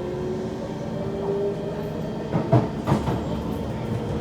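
Kawasaki C151 metro train's traction motors whining in a slowly rising tone as the train pulls away, over a steady running rumble, with two wheel thumps over rail joints about two and a half and three seconds in. The uploader reckons the motor sound on this train is bad.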